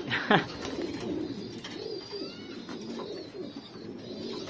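Racing pigeons cooing, several birds overlapping in a low, continuous warble, with one louder, brief downward-sweeping sound near the start.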